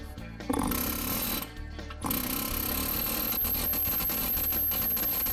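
Pneumatic air hammer rapidly rattling against rusted front suspension parts to break them loose. It goes in two bursts: a short one about half a second in, then a long steady one from about two seconds in, with a thin high whine over it.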